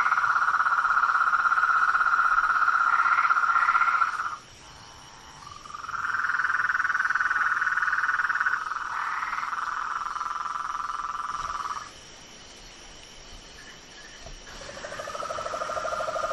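Frogs calling in long, rapid trills, each held for about three to four seconds, with short pauses between them; a second, lower-pitched trill joins near the end. A faint steady high insect drone runs underneath.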